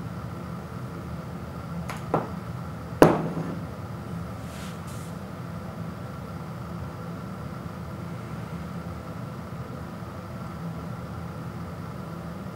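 A ceramic bowl of dry ramen noodles set down on a wooden floor: a light knock about two seconds in, then a louder knock with a short ring about three seconds in, over a steady low hum.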